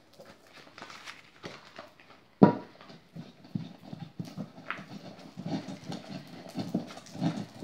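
Pestle grinding pigment into oil paint in a bowl: a steady run of quick scraping, knocking strokes, with one sharp knock about two and a half seconds in.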